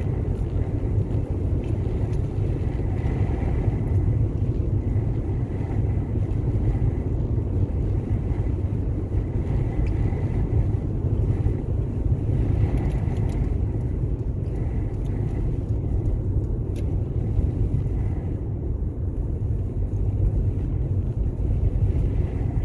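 Steady low drone of road and wind noise inside a moving car's cabin at highway speed, in strong wind.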